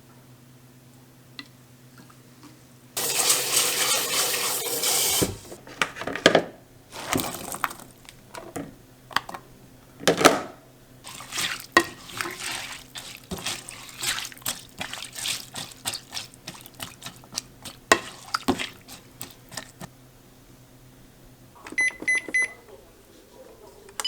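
Kitchen tap running hard for about two seconds, then a long stretch of clattering dishes and utensils. A brief electronic beeping comes near the end.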